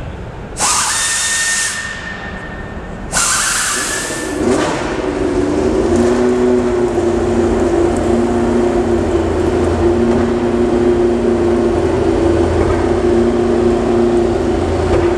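Two loud hissing bursts, each about a second long with a thin steady whistle in it, then from about four seconds in a steady drone with two held tones over a low hum.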